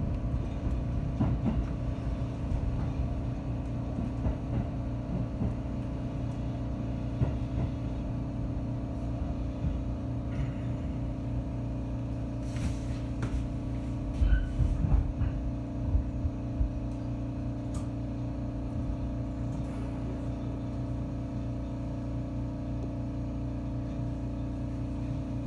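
Inside a JR 313-series electric train: a steady hum from its electrical equipment over a low rumble as it runs slowly toward a station stop. A few brief clunks come about halfway through.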